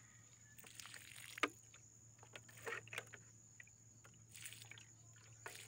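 Water splashing and pouring onto tomato plants in short, uneven bursts as they are watered by hand, with a sharp knock about a second and a half in.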